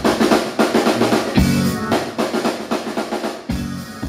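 Live rock band's drum kit playing a run of snare and cymbal hits, with a couple of low bass notes, the whole mix fading out steadily.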